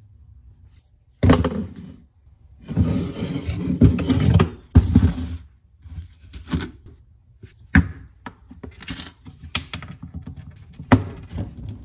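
A glass jar handled on a wooden tabletop: a thunk about a second in, a stretch of scraping and grinding as its screw lid is twisted off, then scattered light clicks and knocks as the jar and lid are set down.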